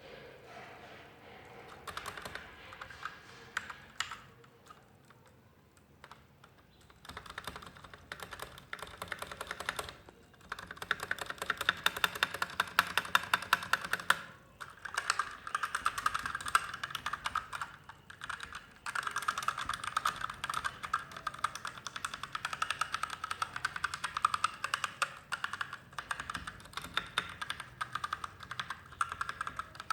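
Typing on a Magegee MK-Star 87-key mechanical keyboard with red linear switches. There are scattered key presses for about the first ten seconds, then fast, continuous typing broken by a couple of brief pauses.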